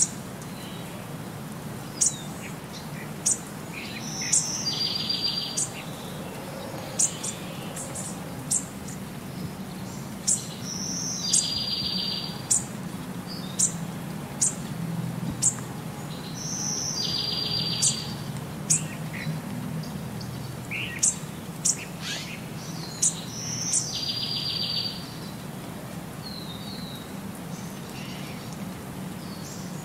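Birds chirping: sharp, high single chirps scattered throughout, and a short rapid trill that comes back in the same form about every six seconds, over a low steady hum.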